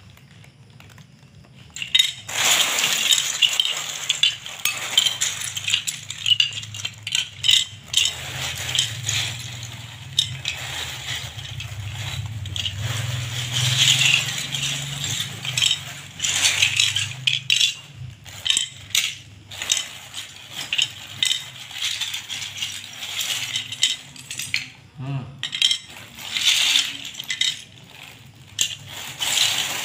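Loose plastic Lego bricks rattling and clicking against each other as hands rummage through and sort a pile of them on a hard floor, starting about two seconds in.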